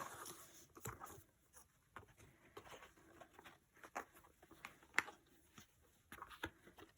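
Faint handling noises: scattered light clicks and soft rustles as small items are picked up and moved, with a sharper click about five seconds in.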